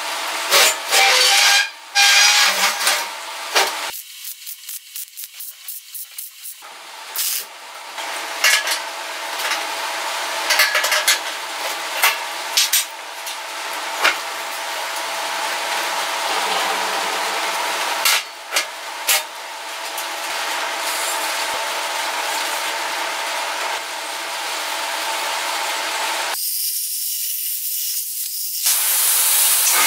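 Gas-shielded MIG welding arc crackling and hissing steadily, broken by sharp clicks and knocks of steel parts being handled, with two short pauses.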